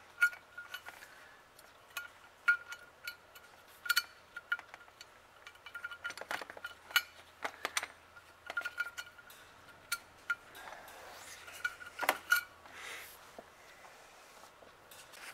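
Light metallic clicks and clinks from handling the Rochester Model B carburetor's air horn while fitting its brass floats and hinge pin, several clicks followed by a brief ringing note. There is a louder click near the end.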